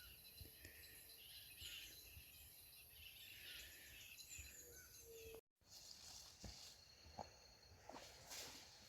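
Near silence with faint night insects, crickets, chirring steadily in the background, and a few scattered faint clicks. The sound drops out completely for a moment a little past halfway.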